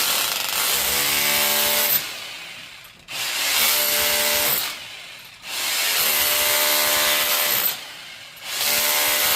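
Handheld power tool run in four bursts of a couple of seconds each, with short pauses between them, its motor note steady while it runs.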